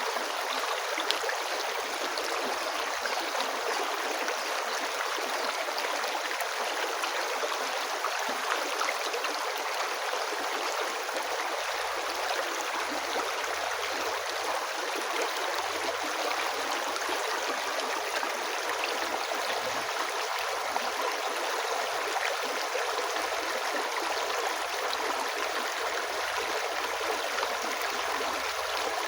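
River water flowing steadily, an even rushing and gurgling with no change in level.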